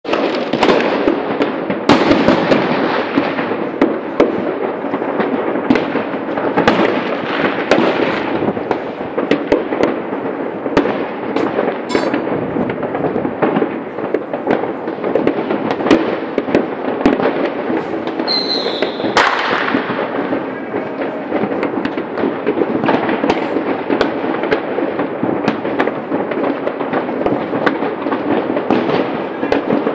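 New Year's fireworks going off all around: a continuous dense crackle of many overlapping bangs, with sharper single bangs scattered throughout. A little past halfway a brief whistle is followed by a louder bang.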